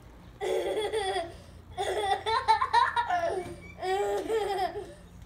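Young children laughing hard in three bursts of high-pitched giggling with short breaths between them, the middle burst the longest and loudest.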